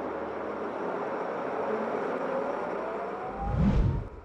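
Bus driving past and pulling away: steady road noise with an engine whine that slowly rises in pitch, and a loud low rumble near the end.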